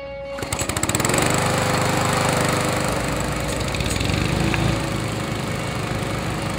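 Small petrol lawn mower engine being pull-started: it catches about half a second in with a quick run of firing pulses, then settles into steady running.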